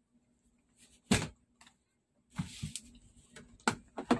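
A few sharp knocks and clacks from objects being handled on a workbench, with a short scraping rustle in the middle: one knock about a second in, the rustle around two and a half seconds, and two more knocks near the end.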